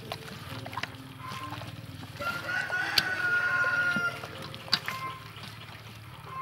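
Rooster crowing once, a single long held call of about two seconds that starts about two seconds in. Two sharp clicks, one in the middle of the crow and one just after it.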